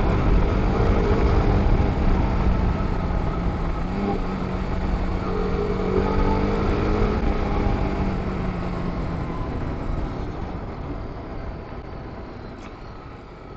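TVS Apache RR 310's single-cylinder engine running at a steady pace under way, with wind rushing over the microphone. The engine sound fades over the last few seconds as the throttle is eased off.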